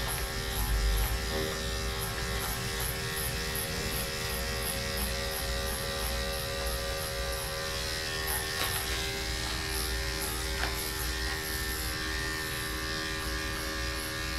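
Corded electric dog-grooming clippers running with a steady hum while shaving a long-haired dog's coat.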